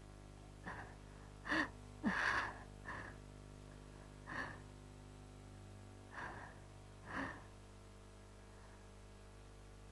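A person breathing: about seven short, breathy breaths or gasps in the first seven seconds, over a faint steady hum.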